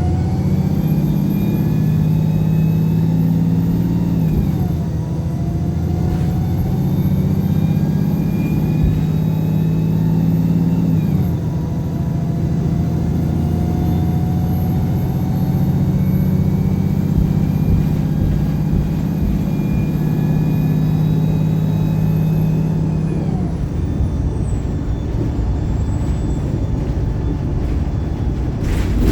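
Wright Pulsar single-deck bus's diesel engine, heard from inside the saloon, accelerating hard under kickdown through its automatic gearbox. The revs climb and fall back at gear changes about four and eleven seconds in, then climb again and hold high in third gear before easing off a little after twenty seconds.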